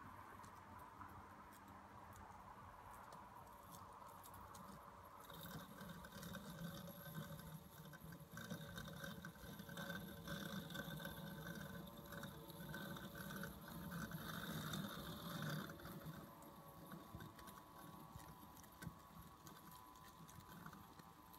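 Husqvarna Automower robotic lawnmower running on the lawn: a faint, steady whir of its small electric motors, which changes and grows somewhat louder about five seconds in.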